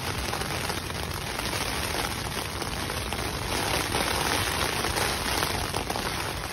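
Heavy rain falling on a tent, heard from inside it: a dense, steady hiss of countless drops that swells a little past the middle.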